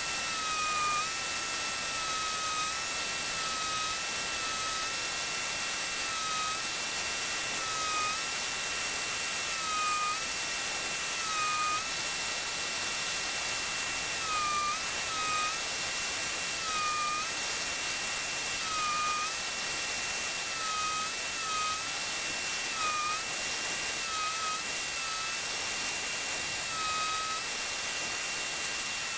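High-speed electric grinding tool working steel, running with a steady high whine and a hiss throughout. The whine dips briefly every second or two as the tool bogs under load against the metal.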